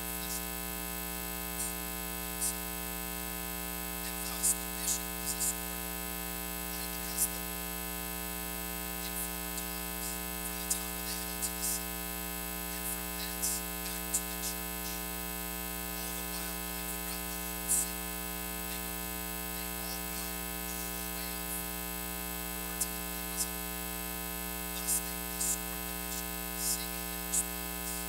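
Steady electrical mains hum with a stack of overtones, broken by scattered short, sharp crackles and clicks.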